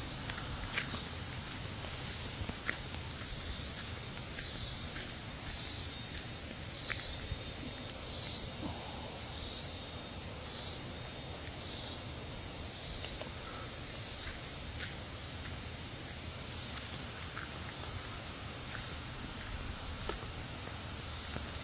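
Forest insects calling: a steady high-pitched whine, with a second insect pulsing over it about once a second for several seconds in the middle.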